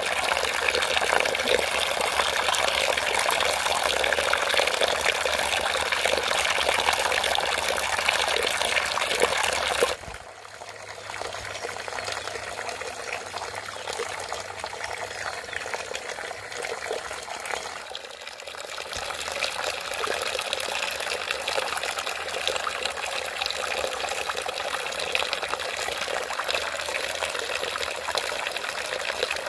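Running water, a steady rushing splash that drops abruptly about ten seconds in and carries on more quietly.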